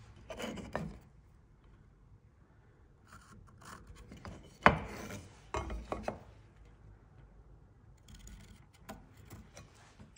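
Pencil scratching marking lines along a try square on a piece of timber, with the square and wood shifted on a wooden bench in short rubbing bursts. A sharp knock about halfway through is the loudest sound.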